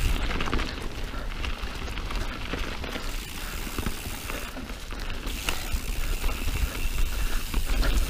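Mountain bike riding down dirt singletrack: a steady clatter of the tyres over dirt and rocks, with the chain and frame rattling over bumps, over a low rumble.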